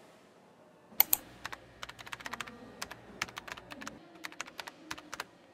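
Keyboard typing sound effect: quick, irregular key clicks, several a second, starting about a second in.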